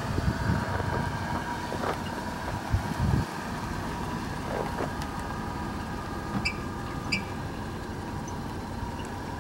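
Steady mechanical hum of an engine or machinery, with irregular low crunching footsteps on gravel in the first few seconds and two short high chirps about two-thirds of the way in.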